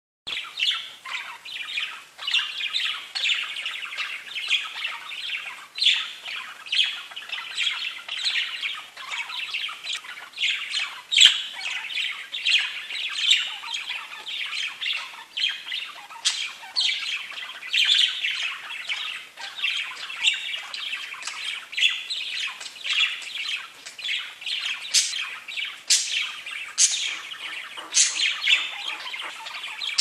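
Pet budgerigars (budgies) chattering: a dense, continuous stream of chirps and warbles, with several sharper, higher calls near the end.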